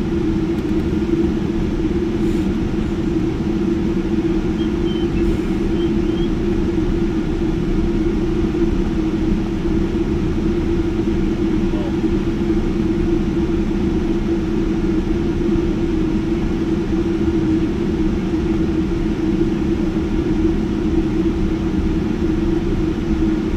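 Steady cabin noise inside a Boeing 787-10 taxiing after landing: an even hum of the engines and air system with a constant low tone, holding the same level throughout.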